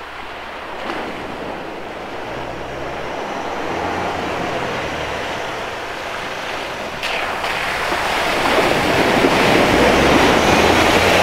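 A four-wheel drive's engine running as it drives toward the microphone and into a muddy puddle on the track, its tyres wading and splashing through the water. The sound builds, loudest over the last few seconds.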